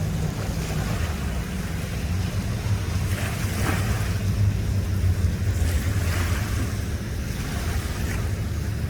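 A boat engine running low and steady, with water sloshing and wind buffeting the microphone; a few short swells of splashing or gusts come and go.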